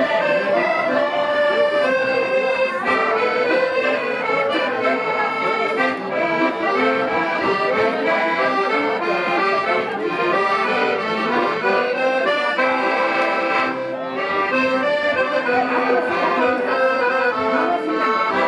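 Two accordions playing a traditional folk tune together.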